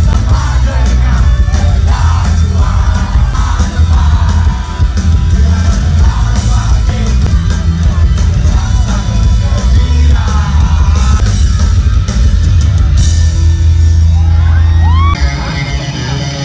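Live rock band playing at full volume: electric guitars, bass guitar and drum kit with vocals over a heavy, booming low end. About fifteen seconds in, the deep bass drops away and the music gets quieter.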